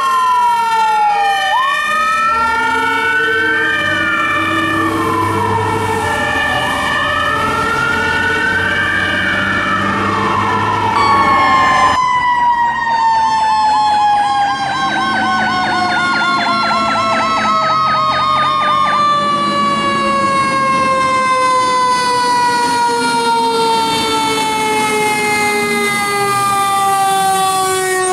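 Fire truck sirens. For the first dozen seconds an electronic wail rises and falls slowly over a two-tone horn that alternates between two pitches. Then a mechanical siren, typical of a Federal Q, winds slowly down in pitch over many seconds, joined for several seconds by a fast electronic yelp.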